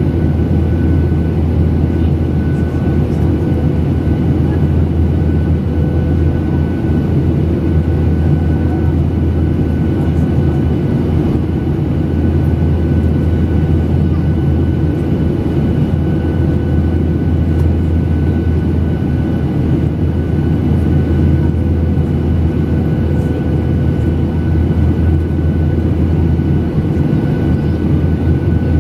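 Jet airliner in flight heard from inside the passenger cabin: a steady, even roar of engine and airflow, heaviest in the low rumble, with a faint steady whine on top.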